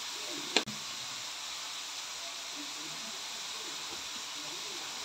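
Chopped tomatoes and onions frying in a pan, a steady sizzling hiss, with one sharp click just over half a second in.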